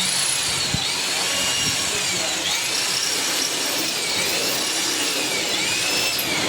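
A power tool running, a loud steady noise with a whining pitch that rises and falls every second or so. It starts and cuts off abruptly.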